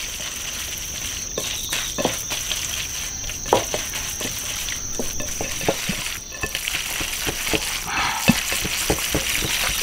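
Raw sliced beef being stirred by hand with its marinade and sweet potato starch: irregular wet squelches and small clicks. A steady high-pitched insect trill runs underneath.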